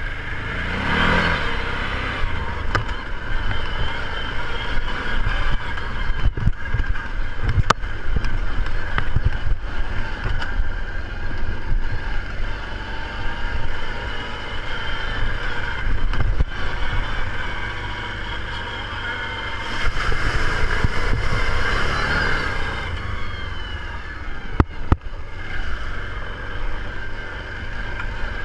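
All-terrain vehicle engine running steadily under way, with a few short sharp knocks scattered through.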